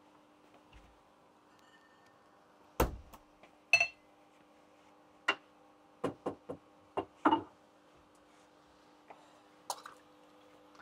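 Bottles and glassware clinking and knocking against each other and the counter as someone rummages under a bar counter: about ten short, separate knocks and clinks at uneven intervals, one ringing briefly like glass, over a steady faint hum.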